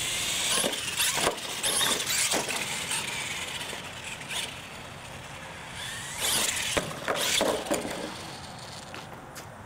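Electric R/C monster truck driving hard on concrete: the motor whines up as it accelerates, with the tyres scrubbing and squealing. There are sharp knocks about a second in and near 7 s, the last as the truck rolls onto its side.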